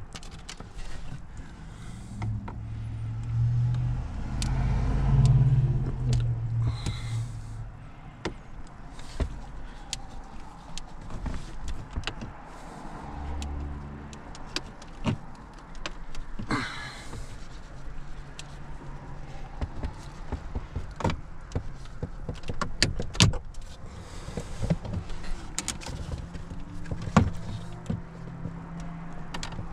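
Plastic dash trim panel being pried and worked loose by hand: scattered clicks, creaks and rattles of plastic and its small metal retaining clips, with dull bumps of hands against the dash in the first several seconds.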